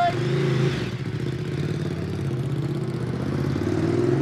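A motor vehicle's engine running as it drives off, its pitch rising twice as it pulls away. A brief high tone sounds at the very start.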